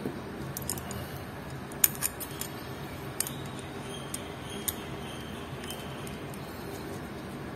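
Light metallic clicks and scrapes, a dozen or so irregular ticks with the sharpest about two seconds in, as an adjustable case-back wrench is seated and turned on the back of a stainless steel watch held in a case holder.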